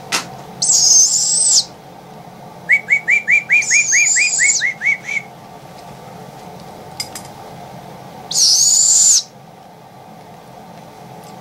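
Baby barred owl giving three long, raspy begging screeches as it is fed, with a quick run of about a dozen short rising chirps between the first and second. A steady low hum runs underneath.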